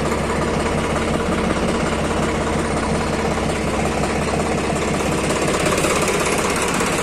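ACE 854 NG tractor's three-cylinder 2854 cc diesel engine idling steadily.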